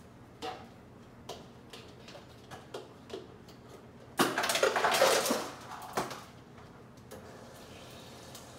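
Hands fumbling at a refrigerator: a few light knocks and clicks, then about a second of loud clattering and rattling of containers, and one more knock just after.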